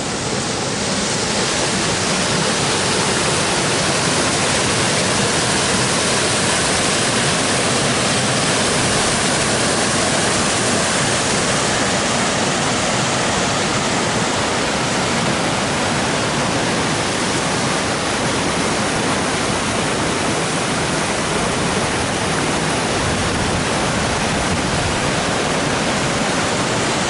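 Steady rush of a river pouring over bedrock ledges and a small whitewater cascade.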